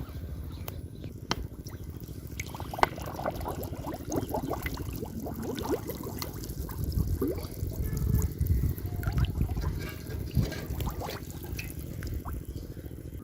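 Pond water being disturbed by hand: trickling, dribbling and small splashes, with scattered clicks and bubbly gurgles, and heavier sloshing past the middle.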